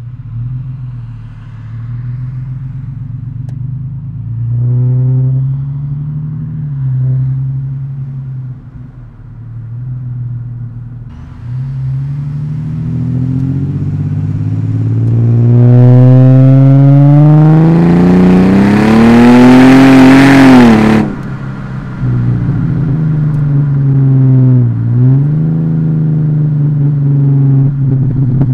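Ford FG Falcon XR6's inline-six breathing through a 2.5-inch Herrod mild-steel catback with only a middle muffler, the rear muffler and resonator removed, giving a deep bassy rumble. A short rise in revs about five seconds in is followed, from about twelve seconds, by a long hard acceleration that climbs in pitch and gets very loud, distorted by an overloaded microphone, then drops off suddenly just past twenty seconds. A brief dip and rise in revs comes near the end.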